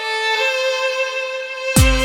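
Instrumental music: a slow, sustained violin melody playing alone, then a loud hit with deep bass near the end as fuller accompaniment with chords comes in.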